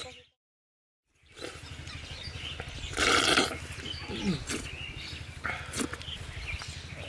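Men slurping and smacking on thick sweet yogurt scooped by hand from clay pots, with a loud slurp about three seconds in and shorter ones later, over a low steady rumble. The sound drops to dead silence for about a second near the start.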